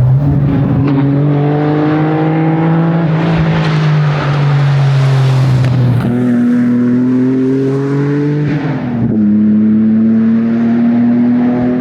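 Lancia Stratos engine running hard under load at competition pace. Its note climbs steadily, jumps up sharply about six seconds in, then drops about nine seconds in before climbing again as the gears change.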